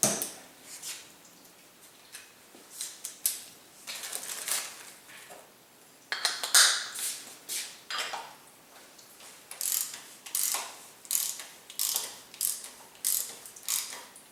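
Socket ratchet tightening the oil filter housing cover, clicking as it is swung back and forth. A few faint, scattered clicks come first; about halfway through, a steady run of ratcheting strokes begins, about three every two seconds.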